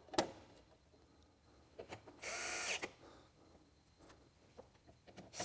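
Electric screwdriver briefly driving a screw to fasten a printer's cover panel: one steady run of about half a second, with a second run starting at the very end and a few light clicks in between.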